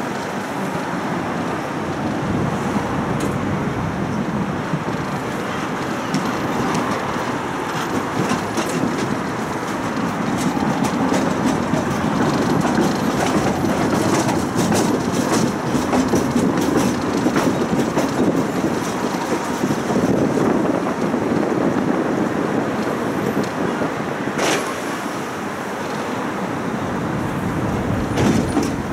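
A tram running along its track, heard from on board: steady wheel-on-rail noise with scattered clicks, the sharpest one late on.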